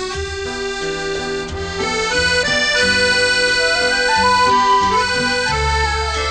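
Instrumental background music: sustained reedy chords over a moving bass line, with a high note held a little past the middle.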